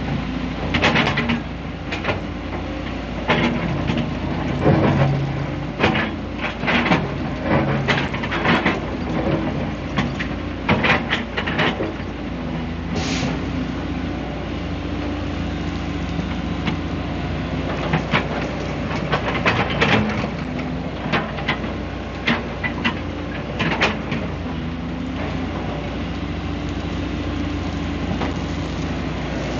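Hyundai 190W-9 wheeled excavator's diesel engine running steadily while digging, with frequent irregular clanks and knocks from the bucket and the soil and stones being worked.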